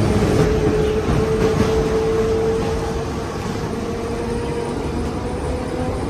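Trolley running along its track: a steady low rumble with a thin steady whine that rises slightly in pitch.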